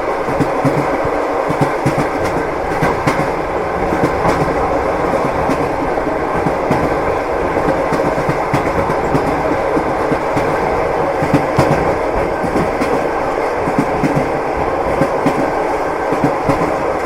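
Lastochka (Siemens Desiro RUS) electric train running at speed, with a steady rumble and the wheels clattering on the rails in frequent short knocks.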